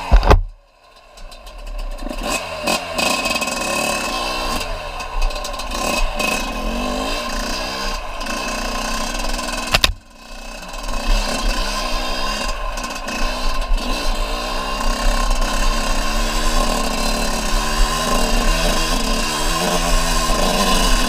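Off-road vehicle engine running and revving up and down over and over as it is ridden. There is a sharp knock about ten seconds in, after which the sound drops briefly and builds again.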